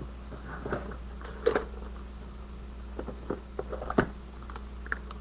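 Rummaging through a box of stamp pads and craft supplies: scattered clicks and knocks of small plastic items being moved, the loudest about a second and a half in and near four seconds, over a low steady hum.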